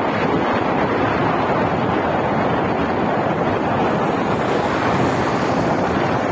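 Steady rush of wind buffeting the microphone, mixed with road noise from the moving vehicle. A motorcycle passing close by adds a little hiss near the end.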